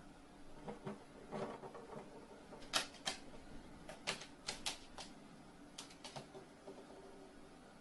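A run of light, sharp taps and clicks at an irregular pace, with a few softer rustles before them.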